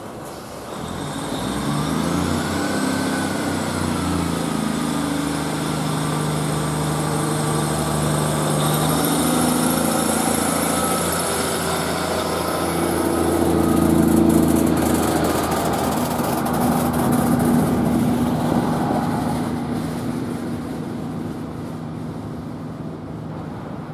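Class 150 Sprinter diesel multiple unit pulling away: its underfloor diesel engines rev up and run under load as the carriages go by, then fade. A whine rises and falls a few seconds in.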